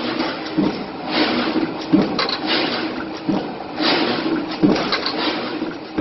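Corrugated cardboard box-making machine running through its feed cycle: a knock about every second and a third, with rushing hiss between strokes over a steady machine hum.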